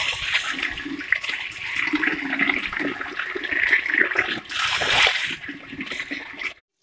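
Water gushing and splashing from a pipe onto a heap of catfish held in a plastic tarp, with a stronger surge of splashing near the end. The sound stops abruptly.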